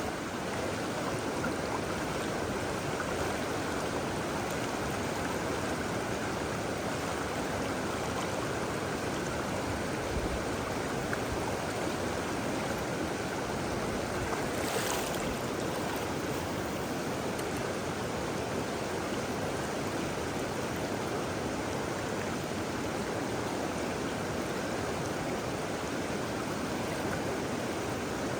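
Steady rush of river water running over a shoal.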